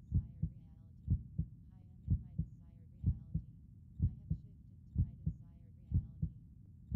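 Recorded heartbeat playing steadily at about one beat a second, each beat a double lub-dub thump.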